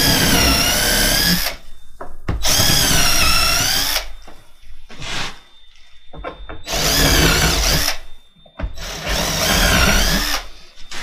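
Cordless drill-driver driving screws through an oak plank into a CNC spoil board. It runs in about four bursts of a second or two, and its whine wavers in pitch as each screw bites.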